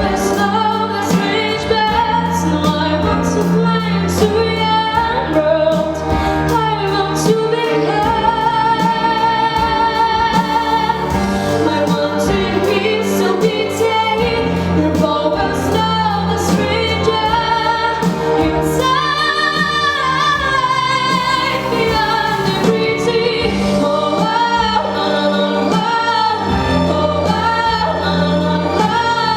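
A young female solo singer vocalizing without clear words, sustaining long notes with vibrato over a backing track with a bass line and a regular percussive beat.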